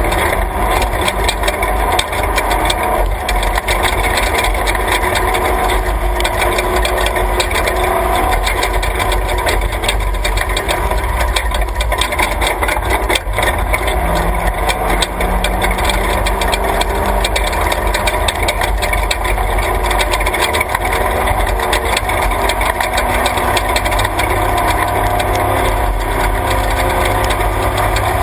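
Class 3 off-road race truck driving fast on a dirt track, heard from inside the cab: the engine runs under load while the body rattles and knocks over the rough ground. The engine climbs in pitch for a couple of seconds about halfway through.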